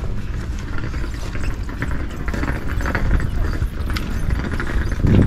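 Outdoor background noise: a steady low rumble of wind on the microphone, with faint voices of other people.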